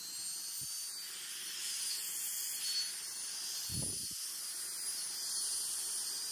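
KiCA Jetfan 2 handheld electric air blower running at a steady speed: a high-pitched motor whine over the hiss of rushing air. A dull knock about four seconds in.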